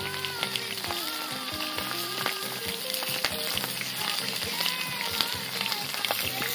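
Chicken sausages sizzling in hot oil in a wide pan over a wood fire, a steady hiss with many sharp crackles and pops. Background music with a melody plays underneath.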